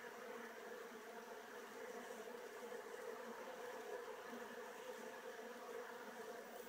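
Steady buzzing hum of many honeybees flying in and out at a hive entrance.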